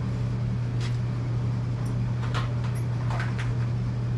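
A steady low hum, with a few light clicks or knocks from hand work at about one, two and a half and three seconds in.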